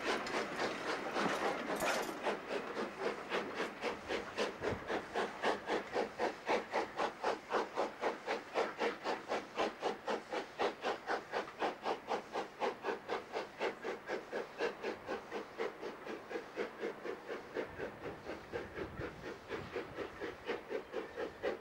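Barclay 0-6-0 tank steam locomotive working under load, its exhaust chuffing in a rapid, even rhythm that eases slightly near the end.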